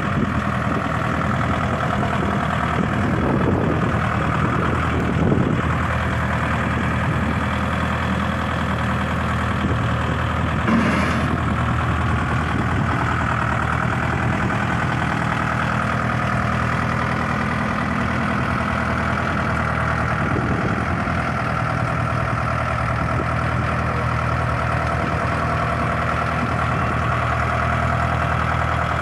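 Kioti DK4510 compact tractor's diesel engine running steadily as the tractor drives and works its front loader, its pitch rising and falling briefly a few times. A couple of short knocks stand out, about five and eleven seconds in.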